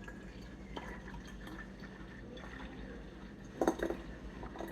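Fresh fruit juice pouring and trickling into a bottle, with a short sharp sound near the end.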